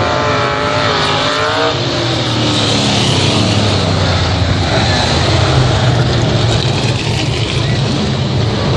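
Race car engines running hard around a track. In the first two seconds one engine's note wavers up and down as it lifts and accelerates, over a steady low drone from the field.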